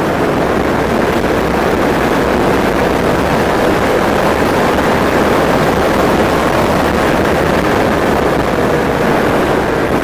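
Steady rush of wind over the microphone mixed with tyre noise from an E-Mobo DuoTork dual-motor electric scooter riding at speed on wet asphalt.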